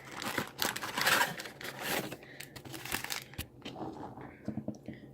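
Trading card packaging being torn open and crinkled, with dense rustling for about the first two seconds, then lighter rustles and small clicks.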